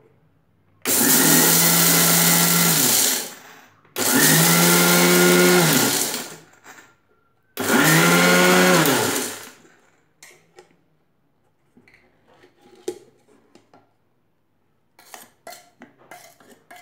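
Electric mixer-grinder motor run in three short bursts of about two seconds each, grinding sugar to powder in the large jar; each burst spins up quickly and winds down as it is released. Faint clicks and knocks follow in the second half.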